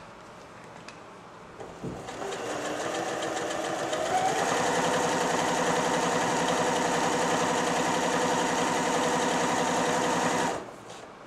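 Janome Jem Platinum 760 electric sewing machine sewing a straight stitch. The motor starts about two seconds in, speeds up over the next couple of seconds, runs steadily, then stops near the end.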